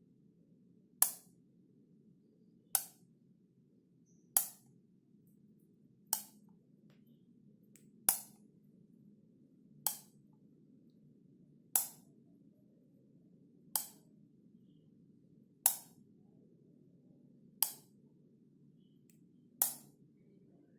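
Wall light switch clicking on and off, one sharp click about every two seconds, over a faint low hum.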